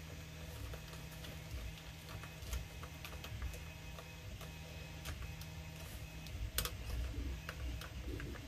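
Faint, scattered light clicks and taps of 3D-printed plastic handle scales being handled and pressed against a plastic blaster grip, over a low hum.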